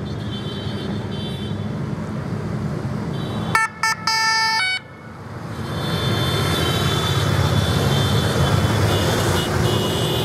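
A column of motorcycles riding past, their engines running and growing louder as more bikes come close. About three and a half seconds in, a horn sounds two short toots and a longer one that cuts off abruptly.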